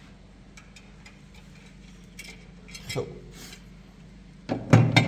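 Scattered light clicks and taps, then a louder cluster of knocks about four and a half seconds in, over a faint steady low hum.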